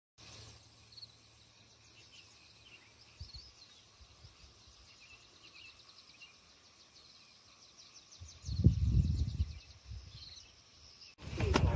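Dusk countryside ambience: a steady high-pitched insect drone with scattered short bird chirps over it. A brief low rumble about eight seconds in is the loudest sound.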